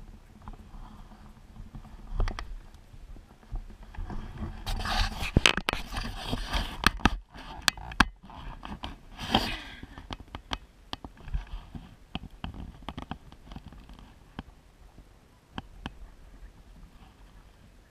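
Scraping, rustling and scattered sharp clicks close to a helmet-mounted camera as the wearer moves, loudest in a burst from about four and a half to seven seconds in and again briefly near nine and a half seconds.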